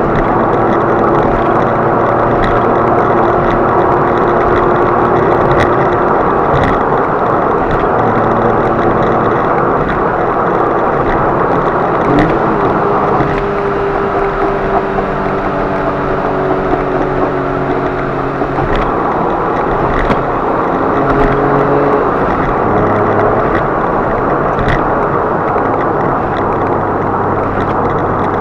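Car driving at speed heard from inside the cabin: steady engine and road noise, with the engine note shifting in pitch about twelve seconds in and again later, and scattered short knocks every couple of seconds.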